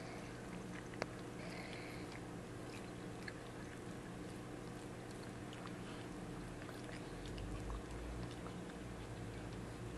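Mother cat licking and chewing at her newborn kittens, wet mouth sounds with small scattered clicks, over a steady low hum; one sharper click about a second in. This is the queen cleaning her litter during labour.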